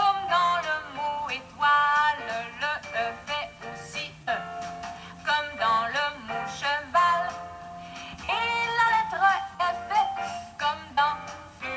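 Music: a song with a sung melody over an accompaniment, the notes changing every fraction of a second.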